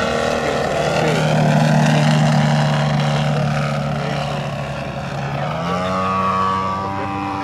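3DHS 108-inch Extra 330LT giant-scale RC aerobatic plane flying by, its engine and propeller running with a steady drone, the pitch rising near the end.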